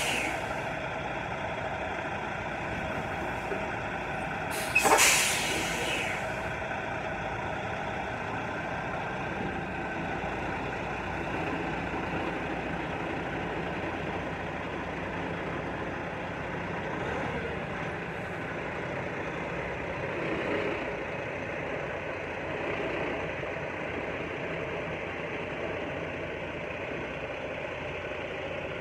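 Semi-truck's diesel engine running steadily as the tractor-trailer manoeuvres, with a loud hiss of air brakes about five seconds in.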